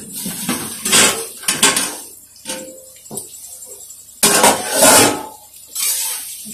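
Steel kitchenware clattering: a steel plate used as a lid is lifted off a kadai and handled, giving several loud metallic clatters, the loudest about four to five seconds in. Near the end a metal spatula starts stirring in the kadai.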